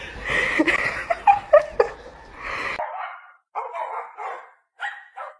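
A dog barking and yipping in short calls over background noise. Just past halfway the background stops abruptly, and four more short barks follow, spaced apart.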